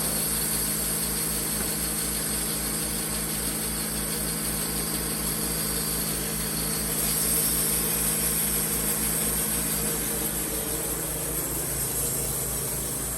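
Wood-Mizer portable band sawmill running steadily, its engine and band blade making a constant mechanical drone with a high-pitched whine. The high-pitched part of the sound changes about halfway through.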